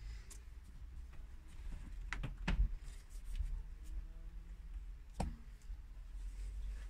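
Door of an Isotherm Cruise 49-litre 12-volt compressor fridge being shut and opened again. A few clicks and a knock about two seconds in as it closes and latches, then a single sharp click about five seconds in as it opens, over a low steady hum.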